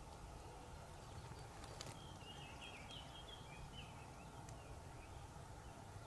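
A faint bird call, a quick run of chirping notes lasting about two seconds, comes in about two seconds in over a steady low wind rumble.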